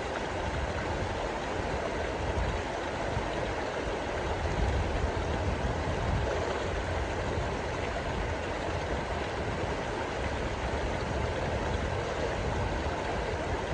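Whitewater river rapids rushing steadily, with a low rumble underneath.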